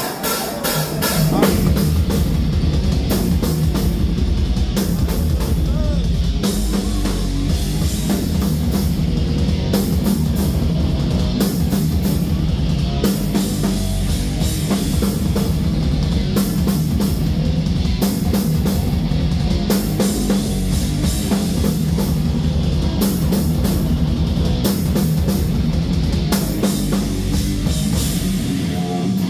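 Rock band playing loud and live, with electric guitar, bass and a drum kit driving steadily with cymbals. The low bass end drops out near the end, leaving the guitar.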